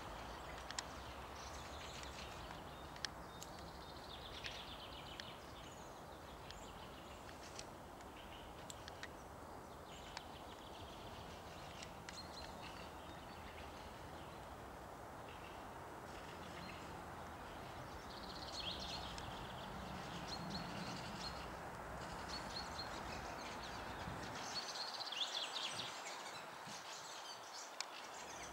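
Forest ambience: a steady hiss, with small songbirds chirping in short high bursts at intervals, the busiest stretch near the end. A few single sharp taps are scattered through it.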